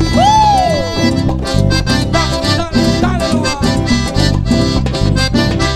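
Live cumbia band music: accordion lead over bass and percussion with a steady dance beat, and a sliding note that rises and falls near the start.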